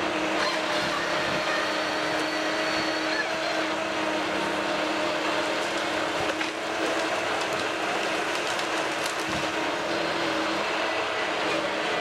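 A heavy logging machine's engine running steadily, with a constant hum that holds a few steady tones.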